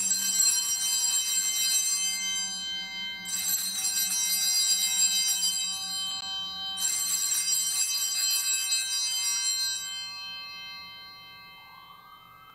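Altar bells shaken in three rings of two to three seconds each, the last one ringing out and fading. They are the sanctus bells marking the elevation of the consecrated host at Mass. A faint rising siren comes in near the end.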